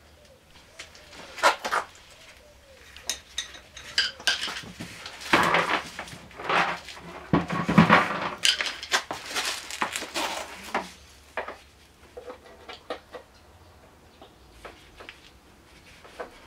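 Metal tools and small engine parts clinking and clattering as they are handled during work on a scooter's cylinder head: a string of sharp clicks and knocks, busiest from about five to eleven seconds in, then thinning out to a few light ticks.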